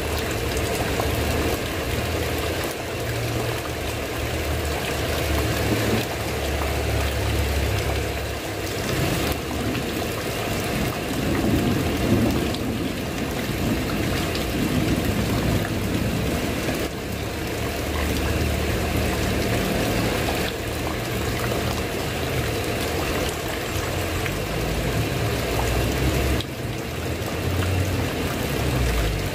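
Steady rain falling on a tile roof, an even wash of noise, with a low rumble underneath that swells and fades at times.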